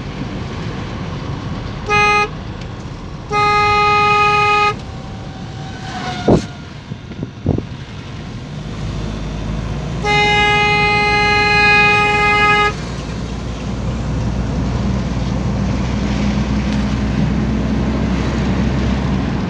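A vehicle horn sounds three times over the running engine and road noise of a moving microbus: a short toot about two seconds in, a blast of just over a second, then a longer blast of about two and a half seconds near the middle. The road rumble grows louder in the second half.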